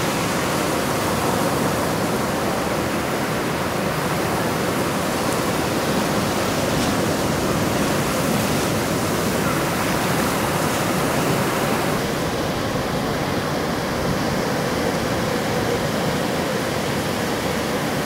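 Ocean surf breaking and washing up the shore, a steady rushing hiss with no distinct crashes.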